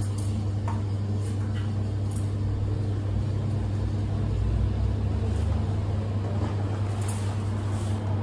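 Steady low hum of cafe machinery behind an espresso bar, with a few faint light clicks of cups and utensils.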